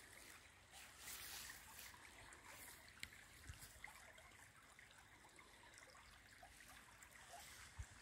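Faint trickling of a small shallow forest brook running over stones, with a few soft low knocks from handling.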